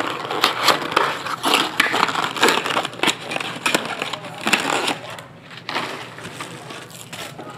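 Crinkling and tearing of card packaging, dense crackling for about five seconds, then lighter rustling.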